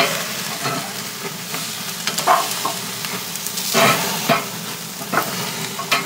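Thick tomahawk steaks sizzling over open flames on the hot grate of a ceramic cooker, a steady hiss. Several short, louder bursts of sizzle come as metal tongs lift the steaks and set them back down to cross-hatch them, about two, four and five seconds in.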